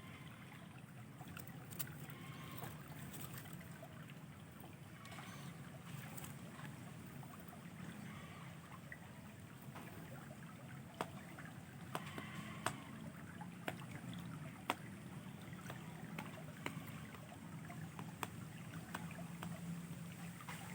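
Faint steady trickle of flowing river water, with a few short sharp clicks scattered through the middle.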